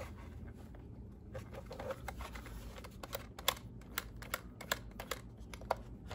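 Irregular light clicks and taps of hands handling and turning over the plastic chassis of a Traxxas Slash RC truck.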